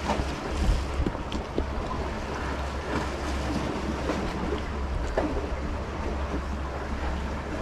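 Wind buffeting the microphone as a steady low rumble, over the constant wash of sea waves against the rocks, with a few faint clicks.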